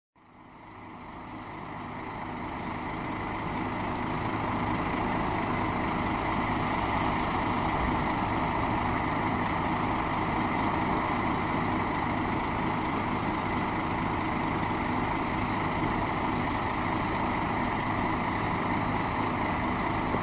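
Heavy diesel engine idling steadily, fading in over the first few seconds and then holding level.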